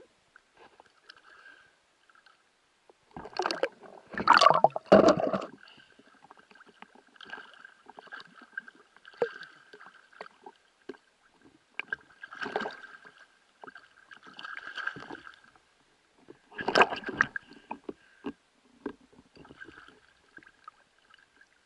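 Water splashing and sloshing in several bursts as a speared carp is handled and lifted at the water's surface, the loudest about four seconds in and again near the end. A faint steady high whine runs underneath.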